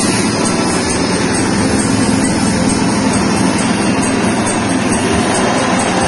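Small 6.5 hp petrol engine running steadily at a constant speed, driving a soybean dehulling machine as it hulls soybeans.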